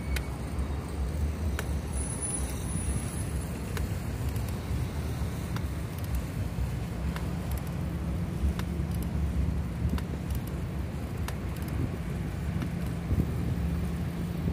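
Steady low rumble of road traffic, with a few faint ticks scattered through it.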